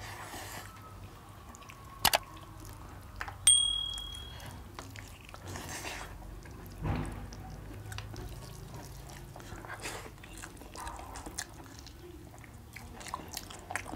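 Quiet eating by hand: chewing and small wet mouth and finger sounds from rice and curry. Steel tableware clinks sharply about 2 seconds in and again, louder, about 3.5 seconds in, the second clink ringing on briefly.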